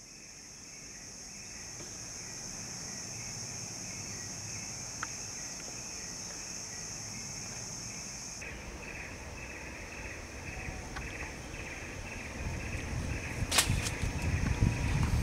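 Forest insects droning: a steady high-pitched drone cuts off suddenly about halfway through, and a lower, pulsing chirr carries on. One sharp click comes near the end, over a low rumble that builds in the last few seconds.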